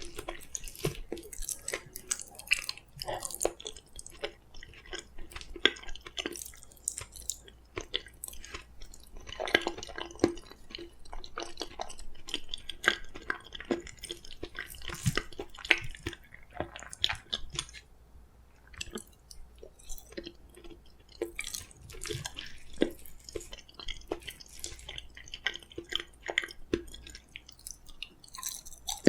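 Close-miked chewing of steamed kabocha squash: soft, wet mouth sounds and irregular small clicks and smacks, with a brief lull about two-thirds of the way through.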